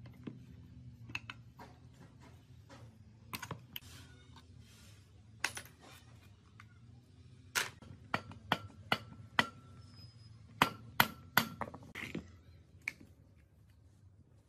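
Sharp metallic clicks and taps of hand tools and engine parts as a parallel-twin motorcycle engine's crankshaft and pistons are worked out of the crankcase. A few scattered taps come first, then a quicker run of louder clinks, some ringing briefly, from about eight to twelve seconds in.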